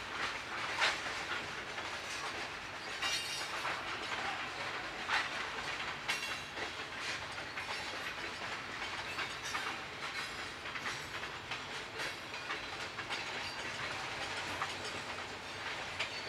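Freight train tank cars and covered hopper cars rolling past: steel wheels clicking over the rail joints amid the steady rolling noise of the cars.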